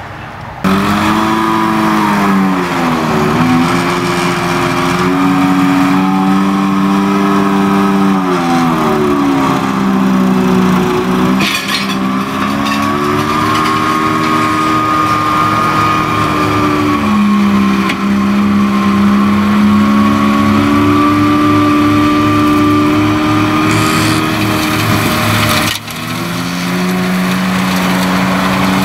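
Tractor engine working under load while driving a rear-mounted mulcher, a steady machine drone whose pitch sags and recovers several times as the mulcher bites into heavier growth. The sound breaks off briefly about half a second in and again near the end.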